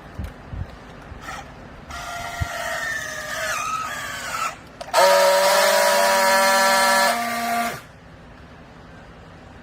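Hydraulic baler's motor and pump whining as the press works: a wavering whine that starts about two seconds in and lasts a couple of seconds, then a louder, steady whine for nearly three seconds that cuts off suddenly. A few low thuds come near the start.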